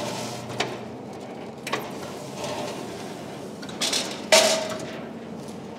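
Marunaka GT-Slider super surfacer running with a steady hum as a board feeds through on auto-return, with several sharp metallic clicks and knocks and one loud clank with a brief ring about four seconds in.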